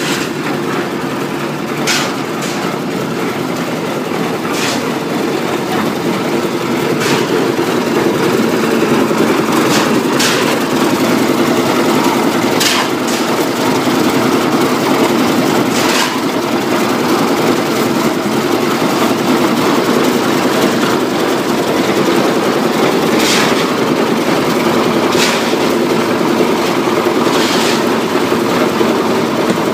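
Engine-driven drum concrete mixer running steadily, with sharp knocks at irregular intervals every few seconds. The running gets a little louder about seven seconds in.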